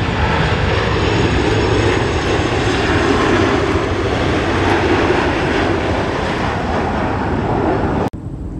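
Airliner engines running loud and steady as a plane passes close by. The sound cuts off abruptly about eight seconds in.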